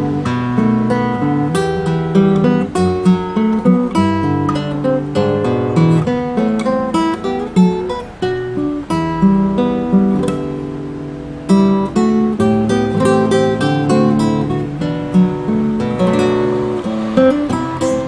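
Gotar G4s classical guitar with a solid spruce top, played fingerstyle: a melodic solo piece of plucked notes and chords. A little past the middle the notes are left to ring and fade before the plucking starts again.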